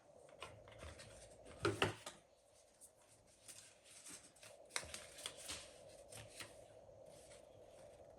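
Cardboard boxes and packaging handled and opened by hand: a series of rustles, scrapes and small clicks, loudest about two seconds in, over a faint steady hum.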